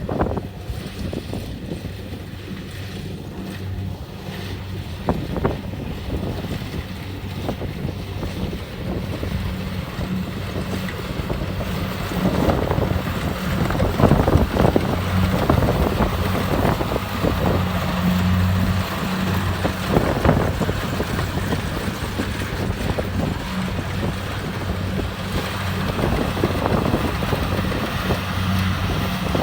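Kubota DC-70 Plus combine harvester's diesel engine running steadily with a low hum while harvesting rice, getting louder from about twelve seconds in for several seconds.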